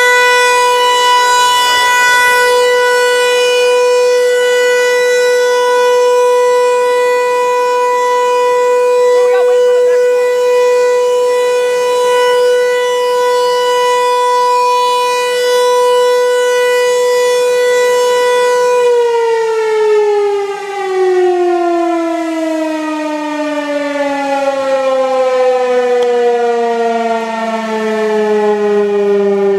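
Outdoor civil-defense warning siren sounding a loud, steady single-tone alert, then winding down about two-thirds of the way through, its pitch falling steadily as the rotor slows at the end of the test alert.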